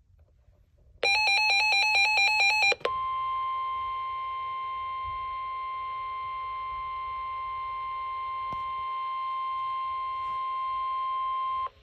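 Emergency alert tones from NOAA Weather Radio. About a second in, a buzzing, rapidly warbling burst of SAME header data lasts under two seconds. It is followed by the steady single-pitch weather radio warning alarm tone, held for about nine seconds before it cuts off, which signals that a warning message follows.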